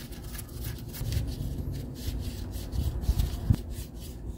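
A gloved hand rubbing and scraping against the air filter and its housing while turning the small retaining nut down by hand. The scraping is uneven, with a few light clicks.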